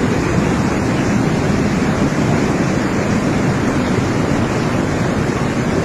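Loud, steady rushing of a torrent of muddy floodwater pouring down a street in heavy rain.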